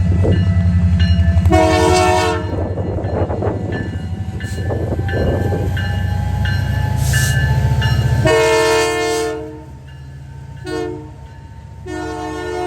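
Diesel locomotive's multi-chime air horn sounding several times over the deep rumble of a passing train: a short blast, a longer one, a brief toot, then another long blast near the end. The rumble drops away after the second blast.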